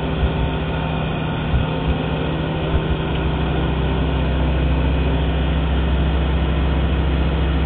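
Light aircraft's engine and propeller running at a steady drone, heard from inside the cockpit. A few low thumps come in the first three seconds, and the sound grows slightly louder after that.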